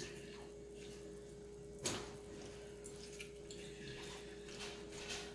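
Quiet room tone with a steady faint hum, broken by a few soft clicks and one sharper click about two seconds in.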